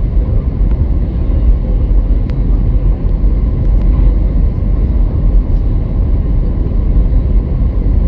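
Cabin noise inside an Airbus A320 during its landing: a loud, steady low rumble with a faint steady whine above it.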